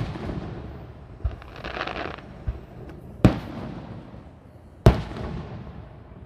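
Fireworks display: aerial shells bursting with sharp bangs at the very start, about three and a quarter seconds in and about five seconds in, with softer thumps between them. A crackling shimmer follows the first soft thump for about a second.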